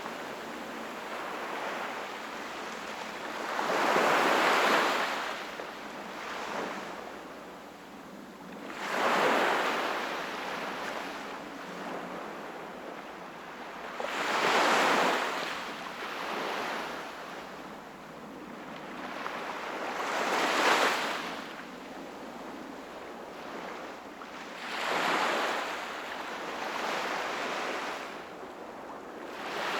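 Small sea waves breaking on the shore in a regular rhythm, each one swelling into a hiss and fading away, about one every five or six seconds.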